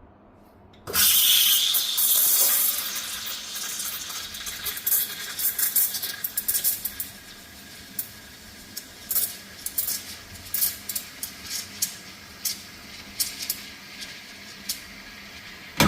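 Steam wand of a heat-exchanger espresso machine, with a four-hole steam tip, frothing milk in a pitcher. The steam opens about a second in with a loud hiss, then settles into a quieter steady hiss broken by frequent short spits and crackles as the milk is aerated and heated.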